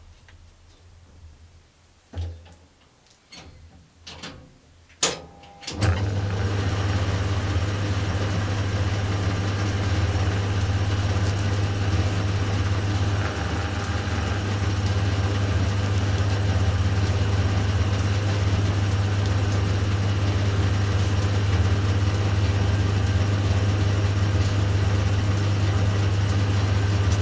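A few sharp knocks as the work is handled, then about six seconds in the Dunford Viceroy lathe's electric motor switches on and runs with a steady, loud hum while the boring tool deepens the recess in the chuck backplate.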